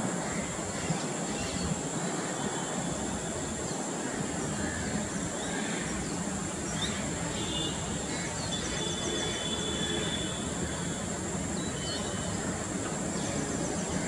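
Steady outdoor background noise: a low, even rumble like distant traffic under a constant high whine. A few short, high bird chirps and quick twitters come in over the second half.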